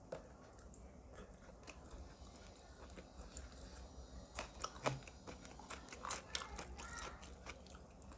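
A person chewing and biting into crunchy food, with many short sharp clicks of bites and mouth sounds that grow busier about halfway through.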